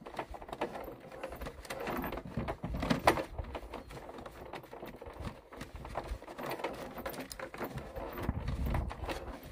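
A dog eating from a plastic bowl: a steady run of irregular small clicks and knocks as it chews and noses around the bowl.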